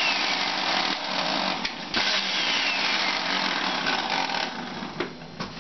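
Electric juicer motor running as its blades chop cooked lamb's liver into small bits, then winding down about four and a half seconds in.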